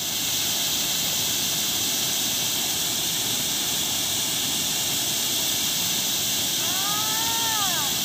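Steady roar of water pouring over the rim and down a bell-mouth (morning glory) spillway shaft. A brief tone that rises and falls sounds near the end.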